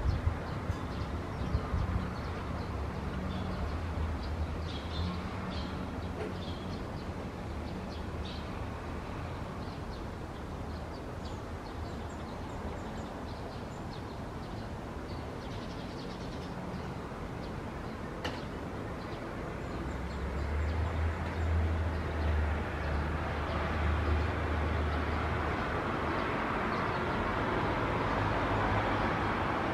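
Steady outdoor rumble and hiss that swells over the last third, with a low engine hum underneath, strongest about two thirds of the way through. A few faint bird chirps come in the first half.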